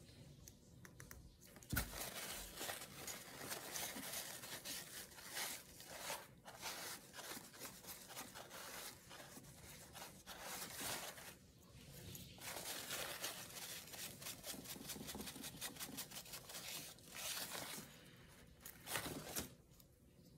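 Fingers rubbing and pressing glued paper down onto a small glass bottle, with a paper towel crinkling against it: a continuous faint scratchy rustle. A single knock about two seconds in.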